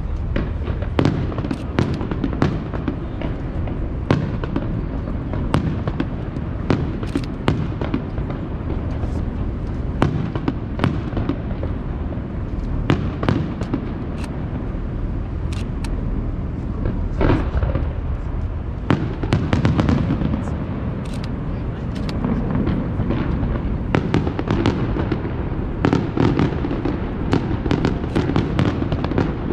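Aerial firework shells bursting in a display: a long run of sharp bangs, at times several a second, over a steady low rumble.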